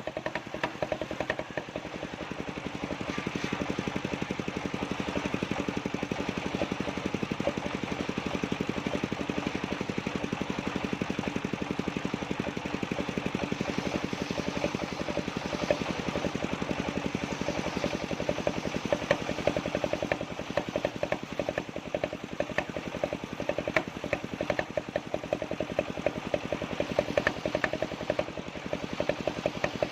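Engine-driven circular sawmill running, a steady machine drone carrying a rapid, even knocking beat. The beat grows sharper and more pronounced in the second half.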